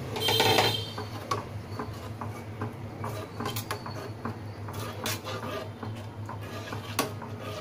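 Steel spoon stirring a runny cornflour batter in a steel pan, with irregular light clicks and scrapes of spoon on metal and a louder scrape just after the start. A low steady hum runs underneath.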